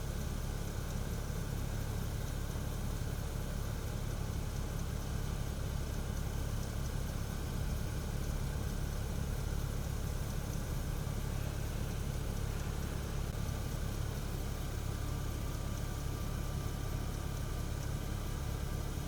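Steady low idle of a fire engine's diesel engine running at the scene, even and unbroken throughout.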